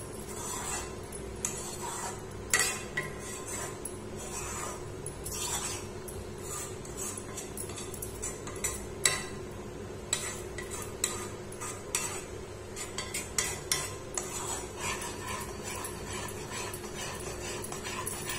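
Spatula stirring and scraping thick khoa in a metal pan for peda, with irregular clinks and scrapes over a steady low hum.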